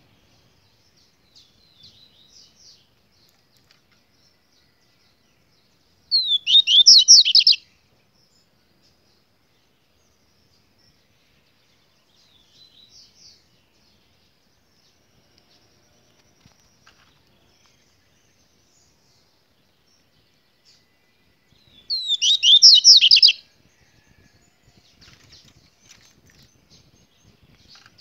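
Caged songbird singing: two short, loud phrases of rapid sweeping notes, about six seconds in and again about twenty-two seconds in, with soft chirps in between.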